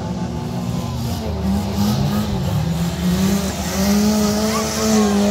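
Stock car engines running hard on a dirt track, the note climbing about three seconds in as a car accelerates out of a bend, with a hiss of tyres sliding on the loose dirt near the end.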